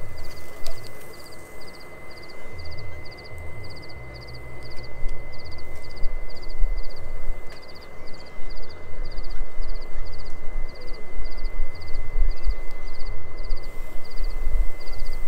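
Crickets chirping in a steady rhythm, about two short high pulsed chirps a second, over a thin steady high tone and an uneven low rumble.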